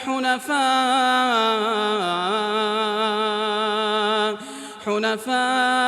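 A man's voice chanting Quranic recitation, holding one long drawn-out note that bends slowly up and down in pitch. It breaks off briefly just after four seconds, then the chanting resumes near the end.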